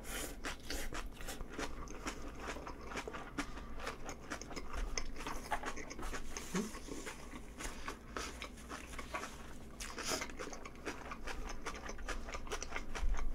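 A person chewing a mouthful of food close to the microphone: a dense run of quick mouth clicks and smacks.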